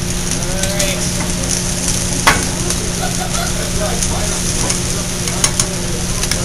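Food sizzling in frying pans on a gas range: eggs going into a hot pan beside a frying hash of sausage, ham, onion and green peppers. A steady low hum runs underneath, and a single sharp knock comes about two seconds in.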